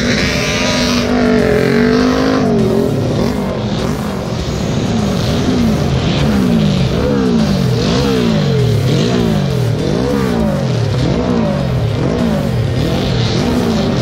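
Racing car engine running hard at high revs, its pitch sweeping up and down over and over, roughly once a second, as the revs climb and fall through gear changes.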